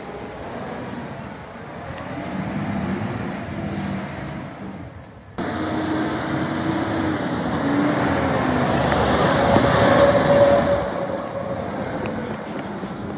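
Side-loader recycling truck's diesel engine running as it drives along the street; the sound breaks off and comes back louder about five seconds in, as the truck approaches and passes close by with a whine, loudest about ten seconds in, then fades as it pulls away.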